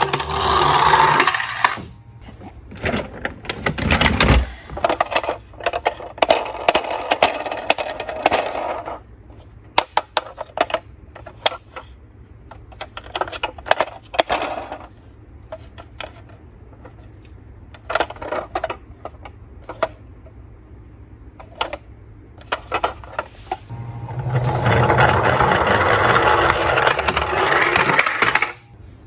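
Plastic toy cars being handled and knocked together in a cardboard box, with many irregular clicks, knocks and rattles. A denser, louder stretch of noise sounds in the first second or so and again for a few seconds near the end.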